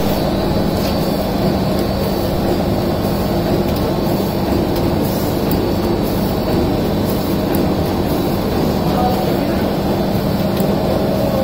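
Servo-driven plastic bag cutting and bottom-sealing machine running continuously, a steady mechanical drone with a constant low hum and light scattered ticks.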